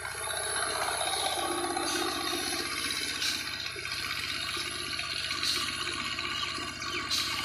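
A walk-behind power tiller's single-cylinder diesel engine runs steadily under load in an even rapid beat, while its rotary tines churn through flooded paddy mud with a sloshing, splashing wash of water.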